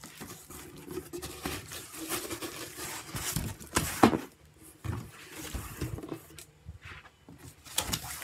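Cardboard boxes being handled: an outer shipping box's flaps and the product box inside rustling, scraping and knocking irregularly, with a sharper, louder knock about four seconds in.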